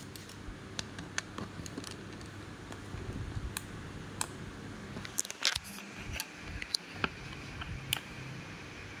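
Scattered light clicks and taps from a handheld key tool's plastic case and buttons as it is handled and pressed, with a louder cluster of clicks about five seconds in.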